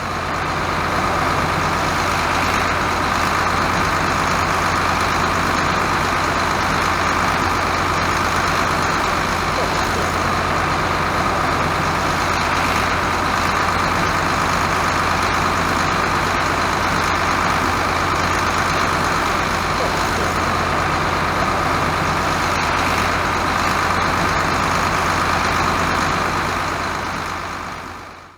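Heavy farm machinery running steadily at harvest, a continuous engine drone with a constant low hum, which cuts out abruptly at the very end.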